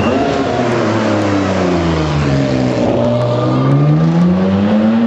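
Supercar engine coming off the revs, its pitch falling for about three seconds, then accelerating with the pitch climbing steadily.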